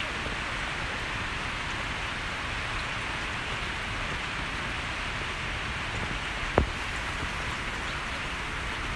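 Steady, even hiss of background noise with no voices, broken once by a single sharp click about six and a half seconds in.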